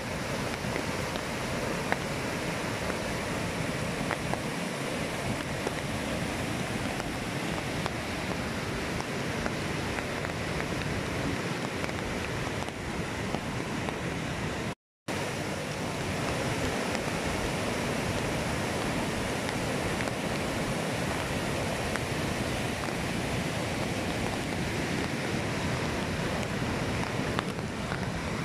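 A river in flood after heavy rain, its muddy water rushing over rapids and rock shelves in a steady, dense rushing noise. It drops out for a moment about halfway through, then carries on.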